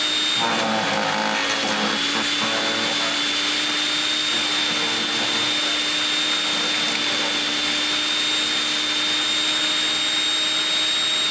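Portland electric wood chipper running with a steady motor whine. For a couple of seconds near the start there is an uneven chopping sound as a branch is shredded.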